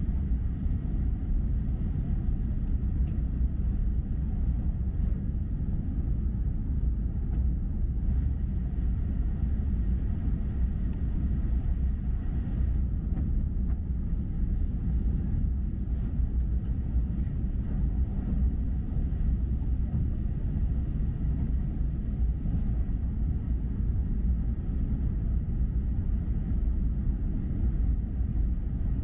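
Steady low rumble of a Komachi Shinkansen E6-series train running along the track.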